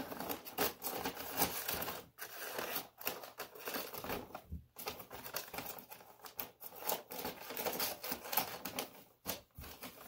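Scissors cutting across a sheet of wrapping paper in a run of quick snips, with the paper rustling, and a few short pauses between cuts.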